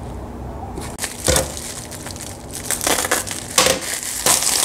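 Plastic bubble-wrap packaging crinkling as it is handled and unwrapped, in irregular bursts, the loudest about a second in and several more in the second half.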